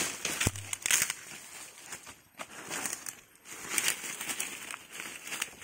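Dry fallen leaves and palm fronds crackling and crunching in irregular bursts as they are trodden on and pushed through, with a short bump about half a second in.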